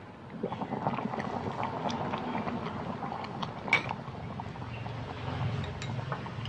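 Pumpkin and sago in sugared water boiling in a small electric hot pot, the bubbling getting louder as the glass lid comes off about half a second in. There is one sharp clink a little past halfway.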